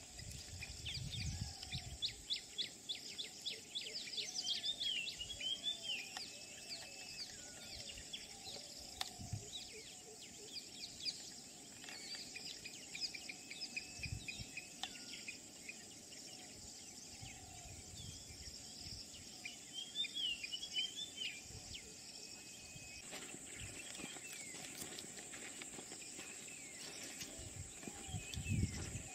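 Bush ambience: birds singing a quick, repeated song phrase three times over a steady high insect drone, with occasional low bumps.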